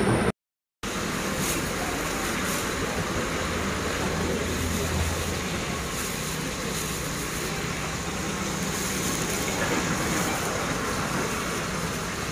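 Steady road traffic noise from passing vehicles, dropping out completely for a moment just after the start, with a low hum swelling briefly midway.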